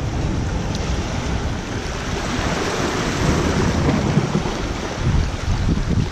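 Small waves surging and washing over shoreline rocks, with gusting wind buffeting the microphone as a low, uneven rumble under the hiss of the water.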